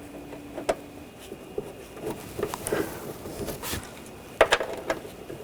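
Scattered light clicks and small knocks of hand work as the door latch screws are started into the door, with a sharper cluster of clicks about four and a half seconds in.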